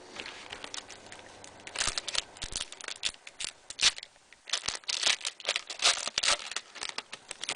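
Crinkling and tearing of a trading card pack's wrapper as it is pulled open by hand, in irregular crackly bursts that begin about two seconds in and pause briefly midway.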